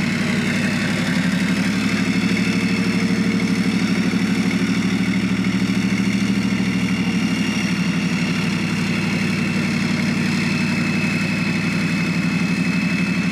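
Leguan bridge-laying tank's Leopard 2 V12 diesel engine running steadily with a fast pulsing drone and a steady high whine, powering the bridge-laying mechanism as the bridge is moved.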